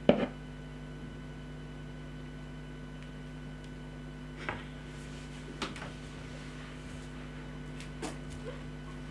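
A plastic bowl knocks against a wooden cutting board, a loud clatter at the start. Three faint, soft handling sounds follow, around four and a half, five and a half and eight seconds in. A steady low electrical hum runs under it all.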